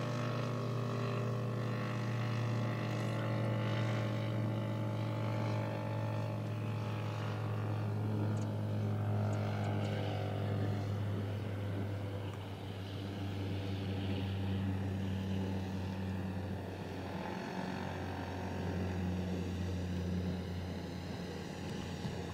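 Engine and propeller of a quarter-scale SE5a radio-controlled model biplane in flight, a steady drone whose pitch drops about halfway through.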